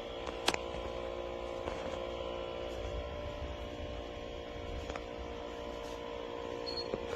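Feelfunn 24-inch beverage refrigerator running with a steady hum of several held tones. A short click comes about half a second in.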